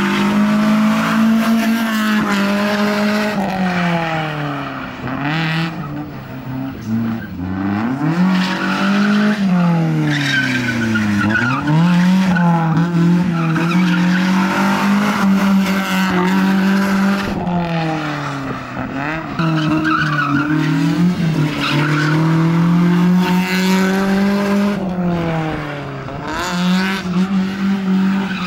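Car drifting with tyres squealing, its engine held at high revs for long stretches, dropping off and climbing back up several times, with the deepest drop about eleven seconds in.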